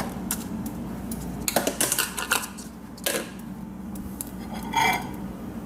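Kitchen items being handled and moved on a counter and stovetop: a few scattered clicks and knocks of containers and cookware, over a steady low hum.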